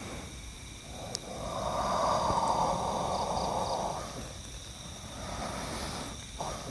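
A man's long, rasping breath, like a heavy hiss through the throat, starting about a second in and lasting some three seconds, then a shorter, fainter one near the end.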